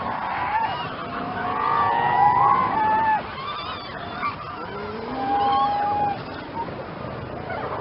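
Several sea lions calling over one another, with many overlapping drawn-out calls. The loudest calls come about two seconds in and again around five to six seconds.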